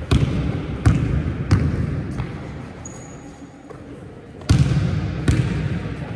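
Basketball dribbled on a wooden sports-hall floor, four bounces about two-thirds of a second apart, each echoing in the large hall. Then a pause with a brief high squeak, and two more bounces near the end.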